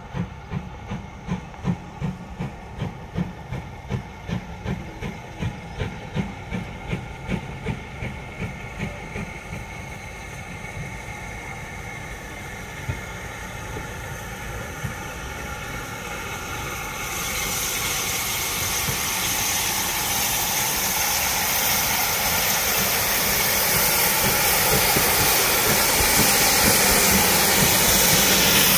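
Steam locomotive No. 13268, an LMS Stanier Mogul 2-6-0, arriving: a rhythmic beat about twice a second fades away over the first ten seconds or so. A steady hiss of escaping steam grows from a little past halfway and is loudest as the engine draws alongside.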